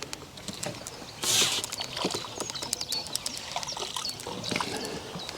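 A short watery splash about a second in, with small clicks and knocks of tackle being handled and a few bird chirps.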